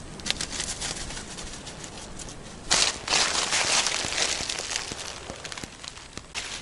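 Walking through dry fallen leaves: scattered rustles and crackles at first, then loud, continuous crunching of leaf litter from a little under three seconds in.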